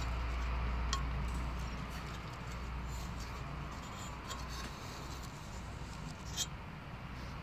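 Steady outdoor hiss with a low wind rumble on the microphone, broken by a few short sharp clicks, the loudest about six seconds in.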